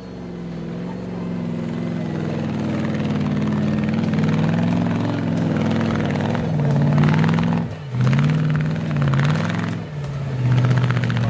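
Battery-powered RC crawler car's electric motor and gearbox whining as it is driven. The whine builds up, wavers in pitch with the throttle, and drops briefly twice before picking up again.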